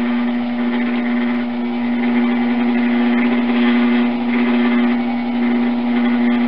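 Potter's wheel motor running at a steady speed with a constant hum while clay is thrown on it.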